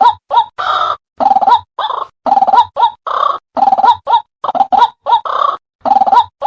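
White-breasted waterhen (ruak-ruak) calling: a fast run of loud croaking 'kruwok' notes, about a dozen of them, some short and clipped and others longer, with brief silent gaps between. It is the lure call played to draw waterhens into snares.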